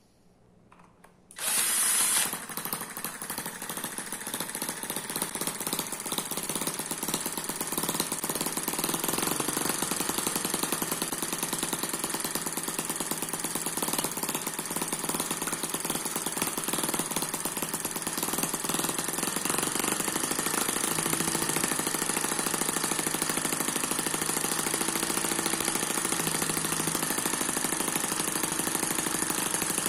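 Eachine EM4 miniature water-cooled four-stroke engine spun over by a cordless drill and starting about a second and a half in, then running steadily with a rapid, fast firing rhythm.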